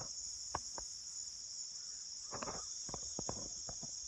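Steady high-pitched chorus of crickets trilling without a break, with a few soft clicks and rustles scattered through it.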